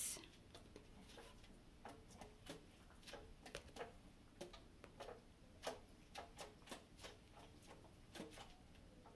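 Soft, irregular clicking of tenor saxophone keys and pads as the player silently fingers notes without blowing, in near silence.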